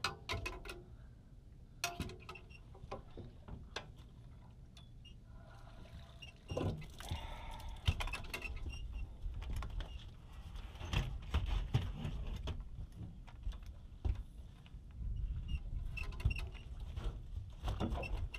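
Scattered clicks and knocks over a low, uneven rumble: handling noise from an angler working a rod and reel and moving about an aluminum boat while fighting a sturgeon. The knocking gets busier and louder about six seconds in.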